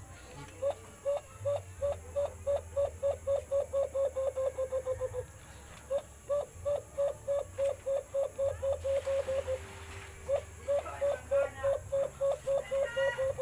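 Cupped-hand call blown by a person to imitate the white-eared brown dove: runs of short, evenly spaced hooting notes, about four a second, each lifting slightly at the end, broken by two short pauses.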